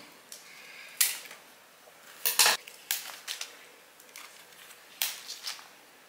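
Scissors snipping at hydrangea stems and leaves: a handful of short, sharp snips and clicks, the loudest a quick pair about halfway through.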